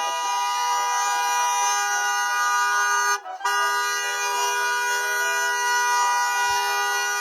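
Car horn sounding continuously, pressed by a dog inside the car, with a brief break about three seconds in.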